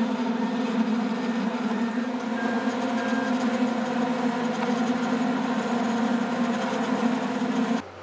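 GOMACO GP4 slipform concrete paver running at work: a steady, loud diesel-engine and hydraulic drone. Near the end it drops suddenly to a quieter, even hum.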